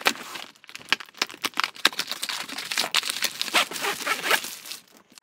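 Crinkling plastic wrap and rustling, scraping cardboard as a retractable baby gate is pulled out of its shipping box, with many irregular small clicks and rustles.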